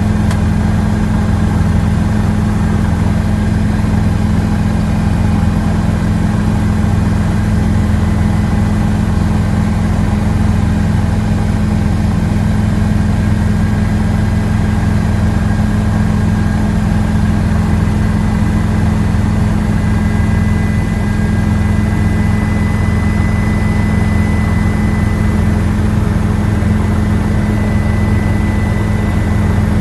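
Steady, loud helicopter engine and rotor drone heard from inside the cabin, with a faint constant whine above the low rumble.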